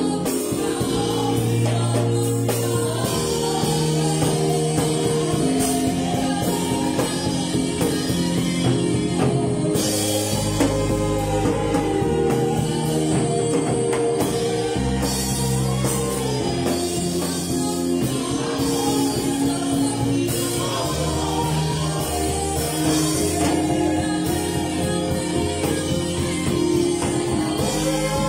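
Live gospel worship music: a woman singing over chords on a Yamaha electronic keyboard, with a drum kit keeping a steady beat.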